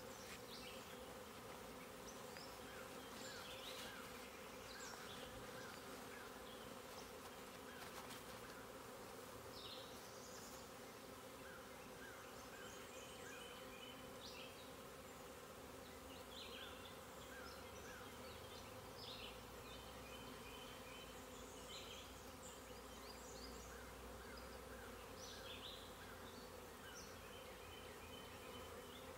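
Faint, steady buzzing of a honeybee swarm flying around a hive entrance as the bees move from a swarm trap into a new hive.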